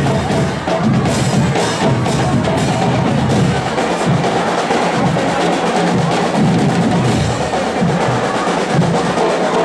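Marching band playing, its snare and bass drums beating a steady march rhythm of about two strokes a second.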